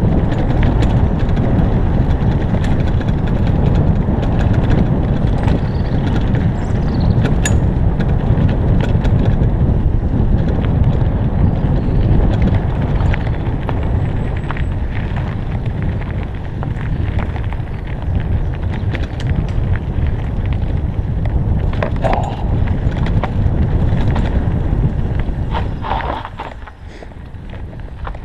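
Wind buffeting a helmet-mounted microphone during a fast mountain-bike descent, mixed with the clatter and rattle of the bike and its tyres over a rough dirt trail. It quietens about two seconds before the end.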